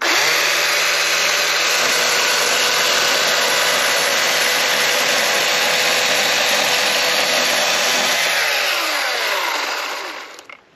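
Husqvarna Power Axe 350i battery chainsaw starting up and running at full speed, cutting through a wild cherry log. About nine seconds in, the motor's whine falls in pitch and dies away as the chain spins down.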